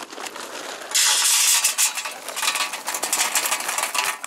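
Charcoal pieces being tipped into a cast-iron grill: a loud rattling clatter with a rushing hiss, starting about a second in.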